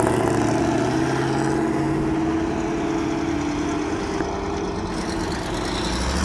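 Engine of a vintage early-1950s pickup truck running as it drives slowly past at low speed, a steady low engine hum.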